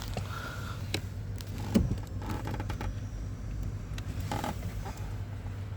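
Small clicks, knocks and scrapes of hands working at the plastic fuse box in a car's footwell, over a steady low hum.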